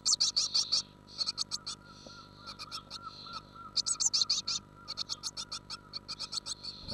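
Nestling birds calling inside a wooden nest box: runs of rapid, high-pitched chips, several a second, in bursts with short pauses between them.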